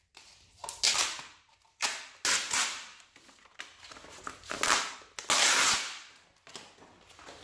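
Adhesive-backed plastic film being peeled off a lithium battery pack's plastic cell holder, ripping loose in about seven sharp, noisy bursts as the glue lets go, the longest pull a little after five seconds in.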